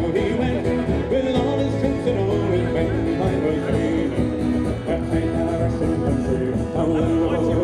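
Country-style background music with plucked banjo and guitar and a steady beat.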